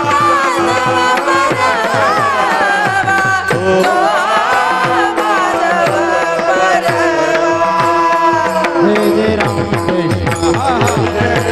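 Devotional bhajan music: a voice sings a long, wavering, ornamented melody over a held drone note, with a hand drum keeping a steady beat.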